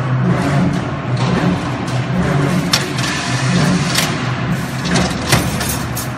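Develop No.2 CNC steel-bar stirrup bending machine running: its motors hum in low tones that step up and down as the bar is fed and bent. Sharp metal clacks come a few times, the loudest about five seconds in.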